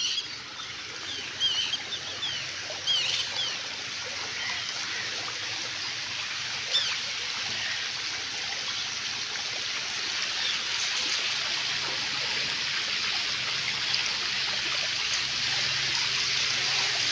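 Shallow water trickling and splashing, a steady hiss that grows slowly louder, with a few bird chirps in the first few seconds.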